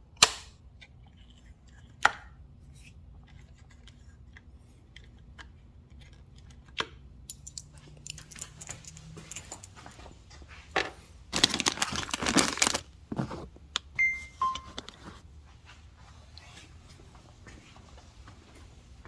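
Small clicks and taps of hands working bulbs and rubber holders out of a motorcycle's instrument housing, with two sharp clicks near the start and a burst of rustling and scraping about two-thirds of the way through. Two short electronic beeps, a higher then a lower one, follow the rustling.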